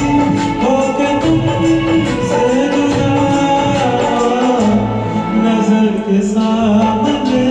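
Music from a Hindi film song cover: a held melody line over a steady, jingly percussion beat.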